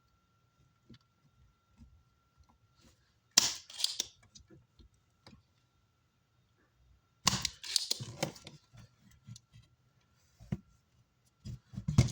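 Short bursts of sharp clicking and clattering from tools and the amplifier's circuit board being handled while its power-supply capacitors are desoldered, loudest about three and a half seconds in and again about halfway through, with a faint steady high-pitched tone underneath.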